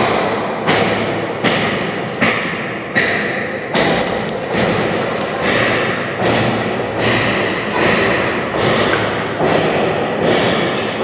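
Footsteps on a hard floor heard through a carried camera: regular thuds, about four every three seconds at a steady walking pace, each trailing off briefly.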